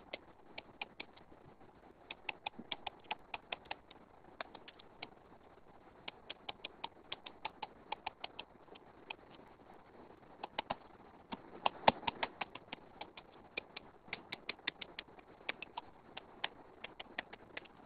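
Stylus tip clicking and tapping on a tablet's glass screen during handwriting: quick runs of small light clicks with short pauses between them, and a louder cluster about twelve seconds in.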